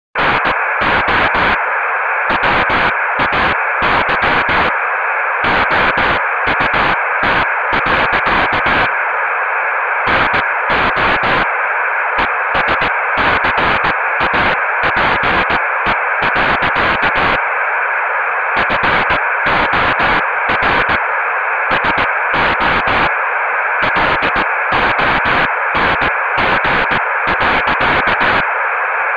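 Loud, harsh static: a steady hiss with rapid, irregular crackling pulses cutting through it in stuttering clusters, with a few brief lulls where only the hiss remains.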